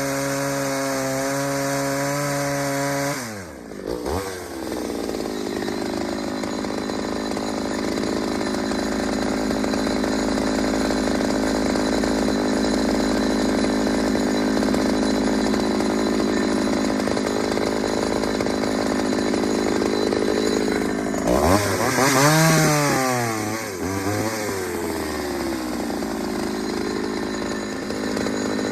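Ported Pioneer two-stroke chainsaw running. About three seconds in its pitch drops sharply, then climbs back and holds steady at high speed. Near the end it revs up and down a few times.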